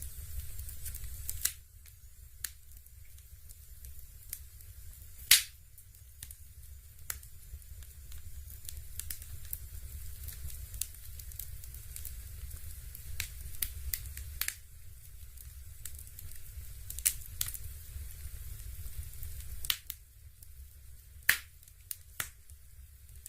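Fireplace crackling: sparse, irregular crackles and pops, the loudest about five seconds in and near the end, over a steady low hum.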